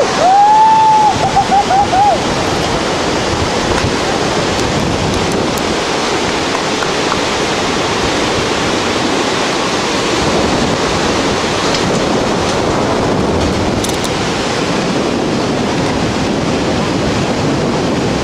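A bungy jumper's yell as he leaves the platform: a held cry that breaks into a string of short pulsed shouts over the first two seconds. After that, a steady rushing noise of the whitewater river in the gorge below, with wind.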